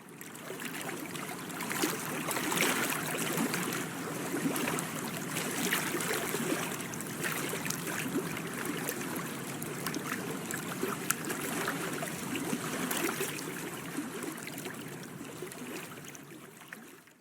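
Water splashing and lapping steadily, with many small irregular splashes and drips.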